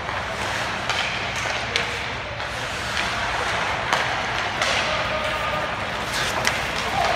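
Ice hockey play in a rink: a steady hiss of skate blades on the ice, with several sharp clacks of sticks and puck.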